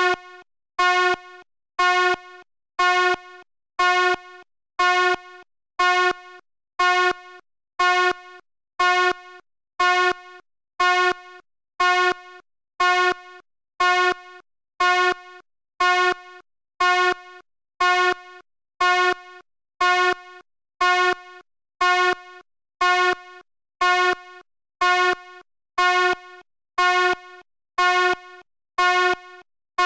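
Fire alarm sounding a steady series of short horn blasts, about one a second, each dropping to a softer tail before the next.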